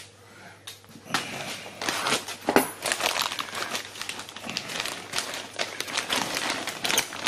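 Plastic bag of dried mushrooms crinkling and rustling as it is handled over a tray of meat. The irregular crackling starts about a second in.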